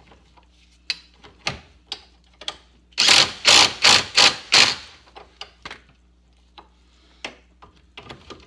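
Cordless impact driver hammering a nylock nut tight on a golf cart's front leaf-spring bolt, in about five short trigger bursts close together about three seconds in. Scattered clicks of metal tools and parts being handled come before and after.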